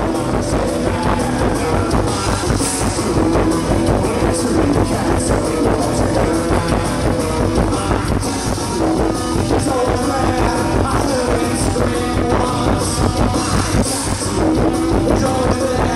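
Live band music playing loud and unbroken.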